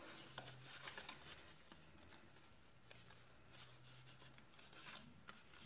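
Near silence, with faint scattered rustles and light taps of cardstock being handled and pressed, over a low steady hum.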